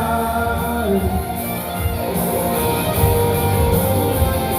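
Karaoke backing track of a country-rock song, guitar-led instrumental break under the end of a sung line.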